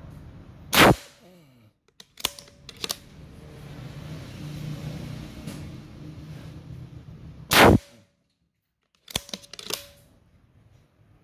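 Two shots from a .22 Beeman Commander air rifle, about seven seconds apart, each a sharp crack. About a second and a half after each shot come two lighter clicks, about half a second apart.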